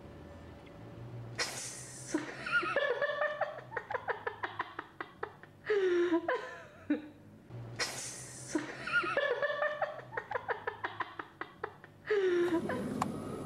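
A toy monkey's recorded laughing and chattering sound with rapid clicking. The same sequence plays three times, restarting about every six seconds, the first time about a second and a half in.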